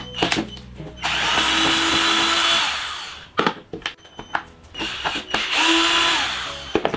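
Cordless drill-driver run twice, about two seconds each, backing screws out of a plastic power-tool housing, with small clicks and knocks between the runs.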